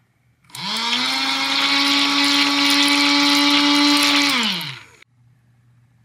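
Small electric motor of a battery-powered toy washing machine spinning up with a quickly rising whine, running steadily for about four seconds, then winding down in pitch and stopping.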